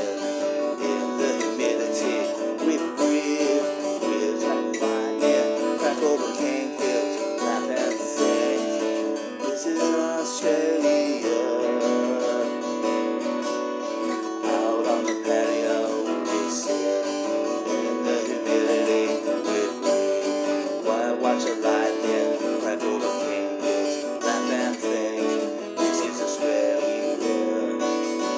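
Acoustic guitar strummed steadily, playing chords to a song.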